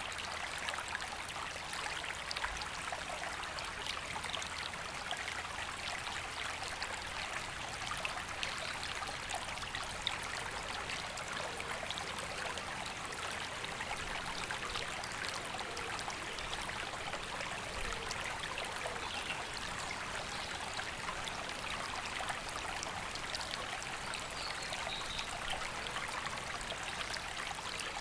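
River water flowing steadily over stones, an even rushing and trickling that does not change.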